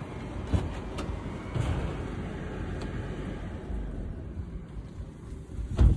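Low outdoor rumble with a few light knocks, then one loud thump just before the end.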